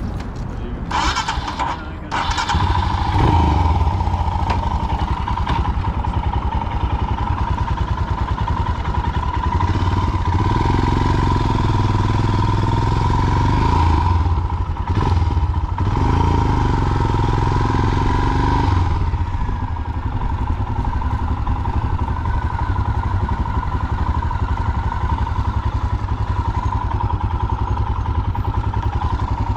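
Royal Enfield Himalayan single-cylinder motorcycle engine starting about two seconds in, then running as the bike is ridden, the engine note swelling twice with throttle.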